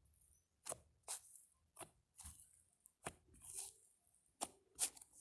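Slime being worked by hand, giving sharp, irregular pops and clicks, about seven in five seconds.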